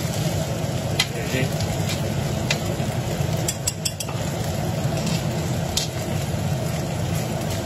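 Salmon pieces and chopped onion frying in a stainless-steel frying pan. A metal spoon clicks and scrapes against the pan several times. A steady low hum runs underneath.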